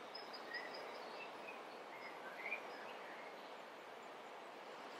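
Faint steady background hiss with a few scattered, faint high bird chirps.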